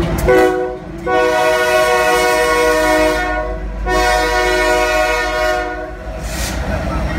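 Lead locomotive's air horn, Union Pacific C44ACCTE 5859, sounding a chord of several tones: one short blast, then two long ones. Under the horn is the low rumble of the passing diesel locomotives.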